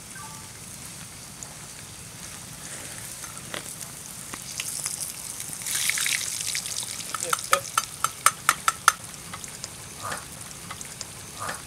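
Metal tongs stirring and clinking against a small metal food tin, with a quick run of about eight ringing taps a little past the middle, over a steady hiss that swells briefly before the taps.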